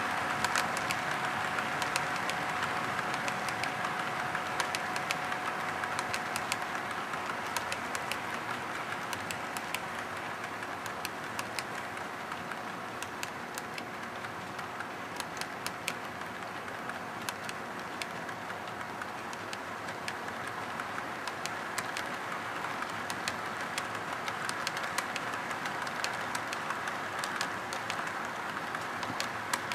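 HO scale model freight cars rolling past on the track: a steady rolling rattle of small metal wheels, broken by frequent sharp clicks. A faint steady hum fades out within the first few seconds.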